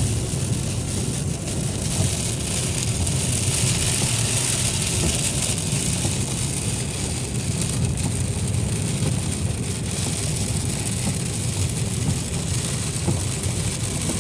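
Steady noise inside a car driving on a rain-soaked highway: a low road rumble under a continuous high hiss of tyres on the wet pavement.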